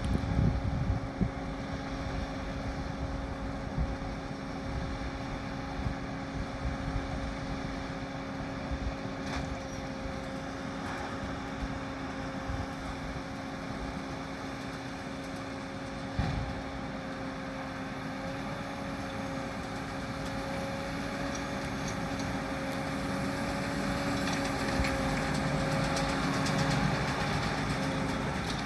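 New Holland T7 245 tractor running steadily while pulling a working round baler through straw, a continuous engine hum with a single knock partway through. It grows louder toward the end as the machine draws nearer.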